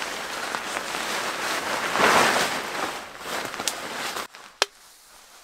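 A large tarp rustling and crinkling as it is shaken out and spread on the ground, loudest about two seconds in. It stops abruptly a little after four seconds, followed by a single sharp click.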